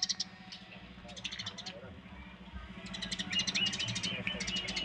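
Eurasian tree sparrows chirping in quick runs of short, high notes: one run at the start, another about a second in, and a longer, busier one from about three seconds in.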